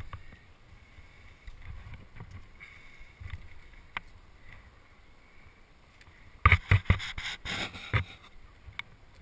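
Climbing rope being handled at a belay, with low wind rumble on the microphone. About six and a half seconds in, a quick run of loud knocks and scrapes close to the microphone lasts for about a second and a half.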